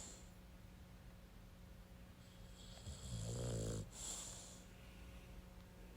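Dog snoring while asleep: one rasping snore about three seconds in, lasting about a second, followed by a softer breath out.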